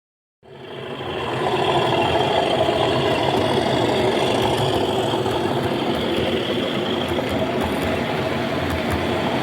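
Model train running on the layout: a steady mechanical rumble with a hum that swells in about half a second in and holds evenly.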